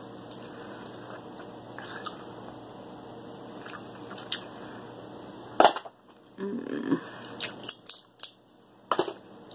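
Cooked king crab leg shell being cracked and pulled apart by hand: quiet picking at first, then one loud crack a little past halfway, followed by several smaller snaps and clicks.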